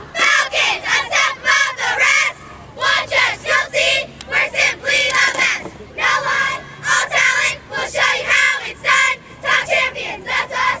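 Youth cheerleading squad of girls shouting a cheer in unison: short chanted words in a steady rhythm, with brief pauses between lines.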